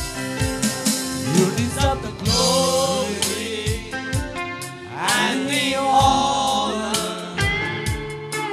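Gospel worship music from a band: drum beats and held chords under a singing voice, which comes in for two phrases.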